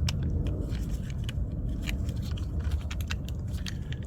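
Scattered small sharp clicks and light scraping of tools and plastic parts being handled while working a door lock actuator loose, over a steady low rumble.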